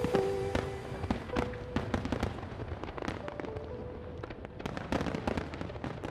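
Fireworks display: aerial shells bursting in quick succession, a dense stream of bangs and crackles, with a cluster of louder bangs about five seconds in and the whole growing gradually quieter.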